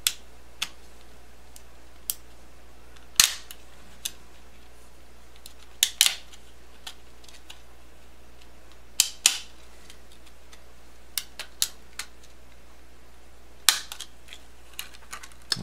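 The two plastic halves of a 3.5-inch floppy disk shell being pried apart by hand: irregular sharp clicks and cracks as the joints give way, the loudest about three seconds in.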